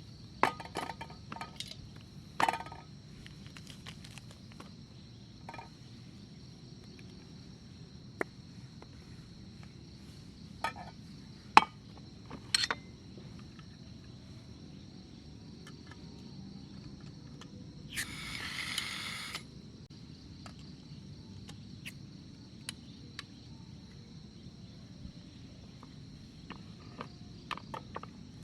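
Steady high chirring of crickets or other insects, broken by scattered sharp clicks and knocks, with a brief hiss about two-thirds of the way through.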